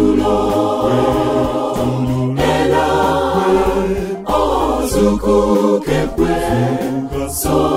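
Mixed choir of men's and women's voices singing a gospel song in full harmony.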